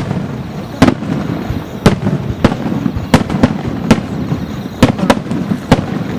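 Fireworks shells bursting in a fast, irregular series: about ten sharp bangs over a continuous low rumble.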